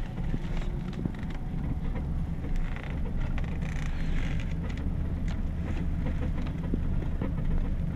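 Pickup truck driving slowly on a dirt road, heard from inside the cab: a steady low engine and road rumble with scattered light clicks and knocks.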